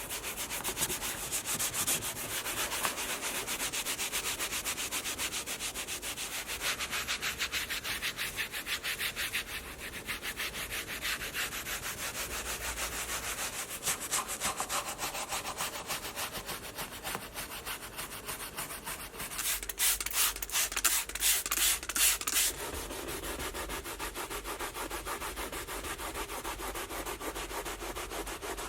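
Rapid back-and-forth hand scrubbing of a car surface, a dense rubbing rasp of many quick strokes, with a run of harder, louder strokes about twenty seconds in.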